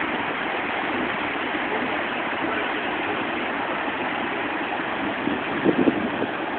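Water rushing steadily through a watermill's channels and over stones, with a few brief low bumps near the end.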